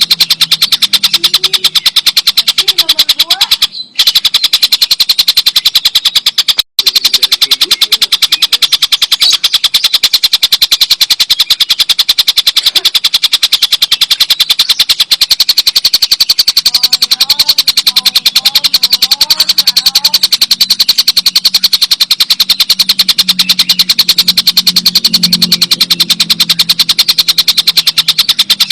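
Stork-billed kingfisher (tengkek buto) giving its long, loud cackling 'ngekek' call: a rapid, even string of sharp notes that runs on without a pause, cutting out briefly twice in the first seven seconds.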